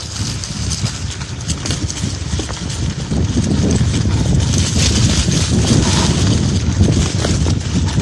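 Entry-level hardtail mountain bike rattling and clattering over a rough, leaf-covered trail on a fast descent, tyres crunching through dry leaves. The clatter gets louder about three seconds in as the bike speeds up.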